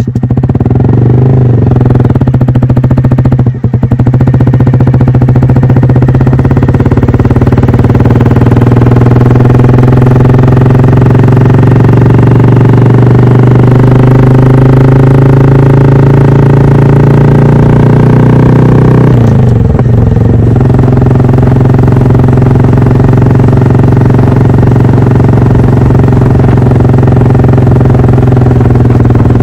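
Honda Monkey 125's single-cylinder four-stroke running through an Aodonly Racing high-mount aftermarket exhaust, heard close to the silencer while riding. After a short break about three and a half seconds in, the exhaust note climbs slowly as the bike pulls for some fifteen seconds, drops back about two-thirds of the way through, then holds steady.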